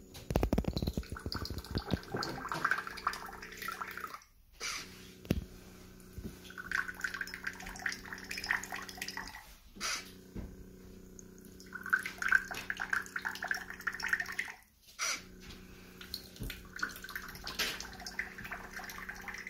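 Automatic shot-glass dispenser at work: its small pump hums steadily while liquid streams from the spout and splashes into a shot glass. It pours four times in turn, with short breaks between, and there is a quick clatter of clicks as it starts.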